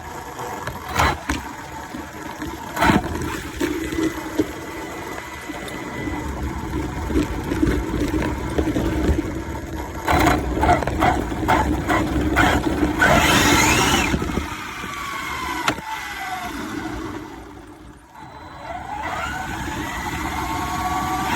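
Arrma Infraction RC car's electric motor whining up and down with the throttle as the car drives and drifts, with knocks and clicks from the car.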